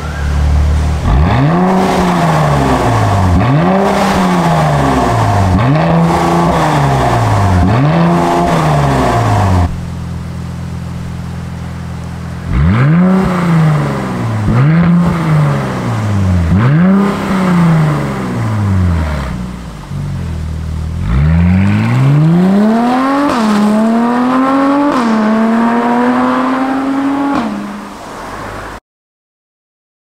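Mercedes-AMG C43's twin-turbo V6 through a Fi Exhaust valvetronic catback, blipped four times with the exhaust valves closed. After a short idle it is revved four more times. Then it accelerates hard and upshifts twice before the sound cuts off near the end.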